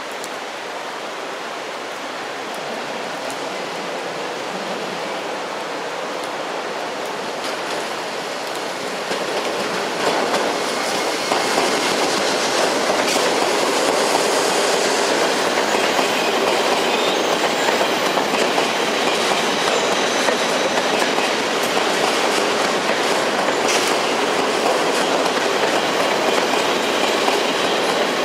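Steady rain hiss, then an NS ICM 'Koploper' electric intercity train comes in and passes close by, growing louder about ten seconds in. Its wheels clatter over the rail joints as the carriages roll past.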